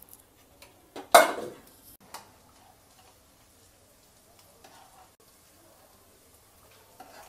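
Metal ladle stirring and scooping thick mutton curry in an open pressure cooker, with a loud clank about a second in and quieter stirring after.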